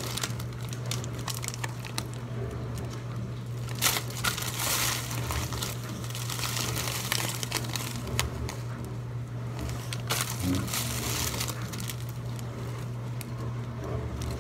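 Tissue paper wrapping and sealed plastic ingredient bags crinkling and rustling in irregular bursts as they are handled and unpacked, over a steady low hum.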